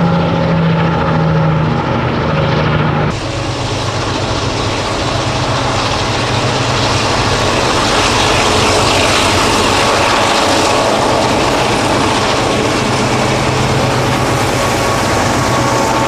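Vintage Alco diesel locomotive running loudly with a steady engine hum. About three seconds in, the sound changes abruptly to a dense, rougher rumble over a lower hum, with no break in loudness.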